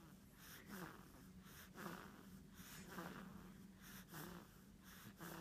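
Soft snoring: short, raspy breaths about once a second, over a faint steady low hum.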